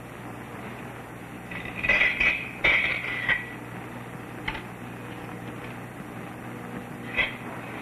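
A metal mason's trowel clinking and scraping on stone and mortar as a wall is laid: a quick group of sharp clinks about two seconds in, a single tap in the middle and another near the end, over a steady low hum.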